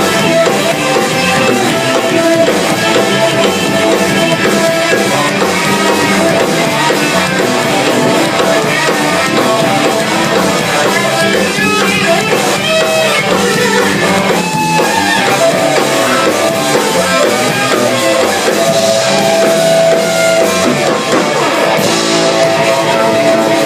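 A band playing live in a jam session, with guitar and drum kit, continuously and loudly.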